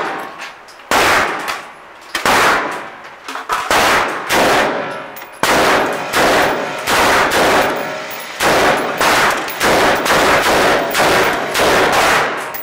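German MG 08/15 water-cooled machine gun firing 8 mm Mauser rounds from a cloth belt in a series of short bursts, about a dozen, with brief pauses between them. The shots echo heavily in a small enclosed range hall.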